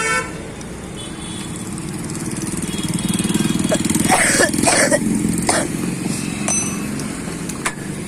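A motorcycle engine passing close by, growing louder for about four seconds and then fading, with a few short scrapes and a click from hand tools.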